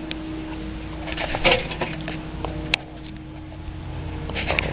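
Chickens moving about close by: soft clicks and scratching, a low steady tone through the first three seconds, and a sharp tick just under three seconds in.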